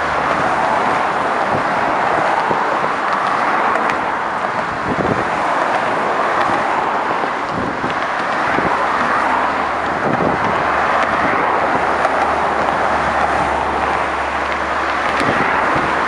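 Steady road traffic: cars and trucks passing close by in the near lanes, their tyre and engine noise swelling and easing a little as each vehicle goes by.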